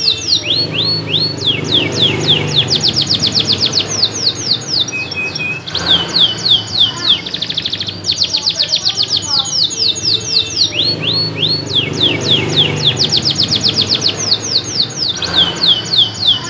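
Domestic canary singing loudly without a break: long rolls of rapid, quick-falling high notes, phrase after phrase, each run changing speed and pitch.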